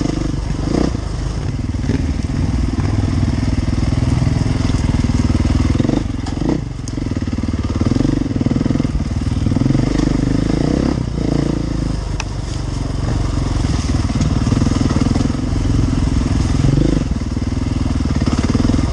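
Enduro motorcycle engine running as the bike is ridden, its revs rising and falling with the throttle and easing off briefly about six and twelve seconds in.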